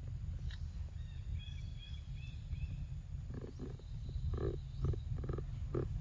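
Long-tailed macaques close by, giving a run of short, soft grunts from about halfway through, over a steady low rumble and a thin high whine.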